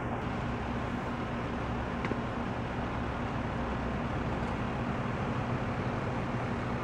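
Steady outdoor background noise: an even hiss with a low hum underneath, holding a constant level with no separate events.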